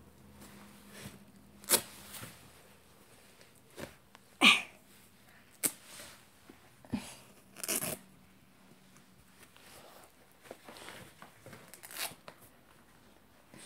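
Scattered short rustles and knocks over a quiet room: handling noise from a handheld phone being moved about.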